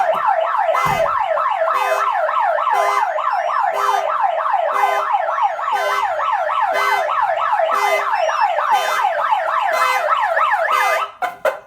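Aftermarket car alarm's bullhorn siren on a 2015 Ford E-350 going off, a loud, fast, repeating falling wail, set off by the door being opened. It cuts off near the end, followed by a few quick short chirps.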